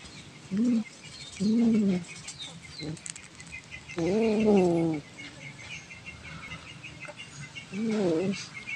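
Domestic cat growling over prey it is chewing: four drawn-out moaning growls, each rising then falling in pitch, spaced irregularly, with faint high chirps behind.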